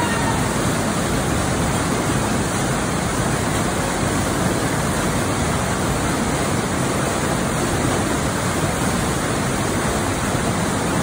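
Waterfall pouring into a flooded cave passage at high water, a steady, loud rush of falling and churning water with spray.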